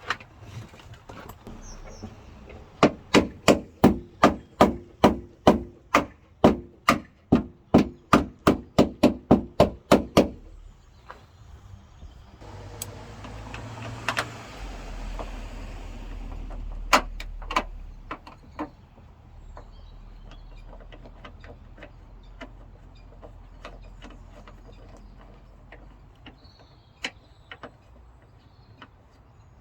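A hammer striking about twenty times in a steady run, about three blows a second, driving a part in. It then stops, and a few scattered clicks and knocks follow.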